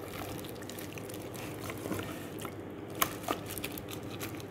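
Raw chicken breasts squished by a gloved hand through a thick yogurt marinade in a plastic tub: irregular soft wet squelches and small clicks, with one sharper click about three seconds in.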